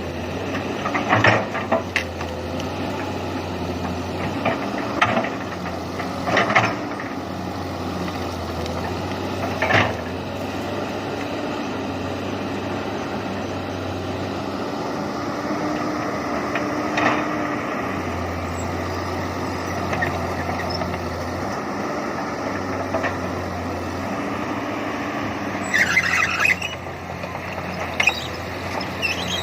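Komatsu PC200 excavator's diesel engine running steadily. Several short sharp squeaks or knocks break in, and a brief high squeal comes near the end.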